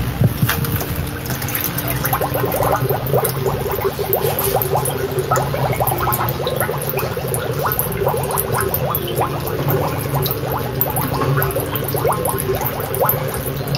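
Water sloshing and bubbling as a closed PVC roll-top dry bag is held under water, with air gurgling out of it in many small irregular pops. The escaping air marks where water can get into the bag when it is submerged.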